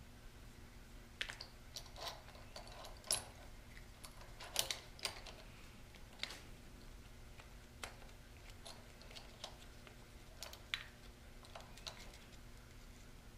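Faint, irregular clicks and taps of metal and plastic parts handled by hand while an aftermarket clutch lever assembly is fitted onto a motorcycle handlebar, with two louder knocks a few seconds in.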